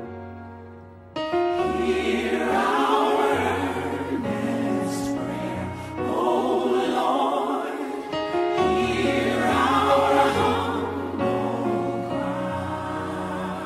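Background music: a choir singing gospel music, coming in suddenly about a second in as the earlier music fades out.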